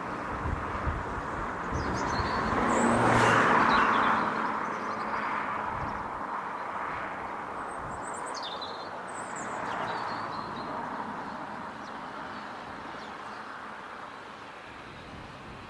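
A passing vehicle, a rushing noise that swells to its loudest about three to four seconds in and then fades away, with birds chirping.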